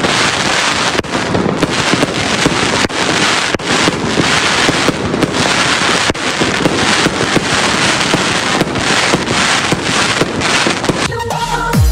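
Fireworks going off in a dense, continuous crackle of overlapping pops and bangs. Near the end the crackle gives way to music with a steady beat.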